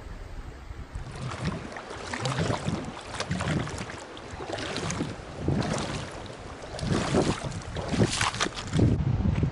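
Water splashing and sloshing in a mountain stream in irregular surges, with short sharp splashes; it starts about a second in and stops shortly before the end.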